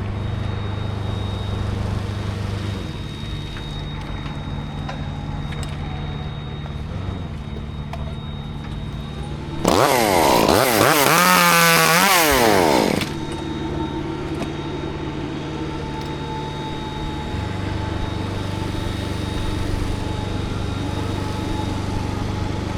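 A chainsaw revving hard for about three seconds near the middle, its pitch swinging quickly up and down, over a steady low engine drone that changes speed a couple of times.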